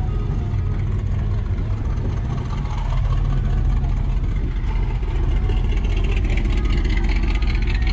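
A car engine running with a deep, steady rumble, getting a little louder about three seconds in.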